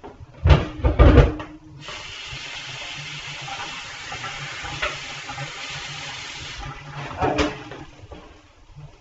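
A couple of knocks from kitchenware, then water running or pouring steadily for about five seconds, ending with another knock.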